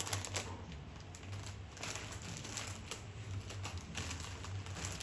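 Plastic packaging being handled and opened: light rustling with a run of small irregular clicks and crackles, over a steady low hum.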